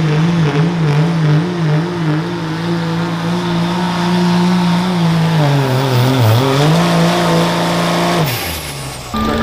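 Dodge Ram's Cummins inline-six turbodiesel pulling hard at full throttle against a pulling sled. The engine pitch wobbles at first, then holds steady, sags once about halfway under the load and recovers, and falls off sharply about eight seconds in as the throttle is let off at the end of the pull.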